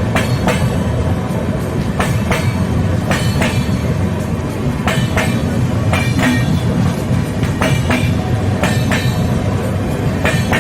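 A train running on the track: a steady rumble, with the wheels clacking over rail joints in pairs about every second or two.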